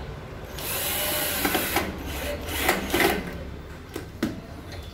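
Hand work with tools on the microwave oven's capacitor mounting as the replacement capacitor is fastened in place: a short hissing burst, then a string of sharp clicks and knocks, two of them close together near the end.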